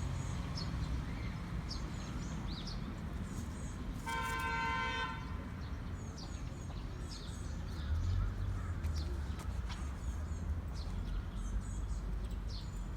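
A vehicle horn sounds once, a steady tone lasting about a second, over scattered bird chirps and a low rumble.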